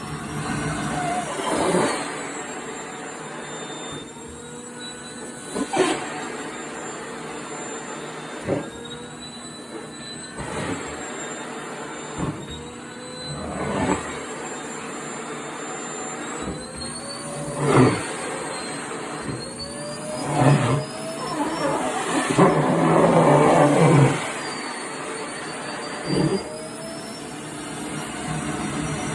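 Vacuum cleaner running with a steady motor whine that drifts up and down in pitch, broken by a series of short, louder surges as skirt fabric is drawn into the nozzle, the longest about three quarters of the way through.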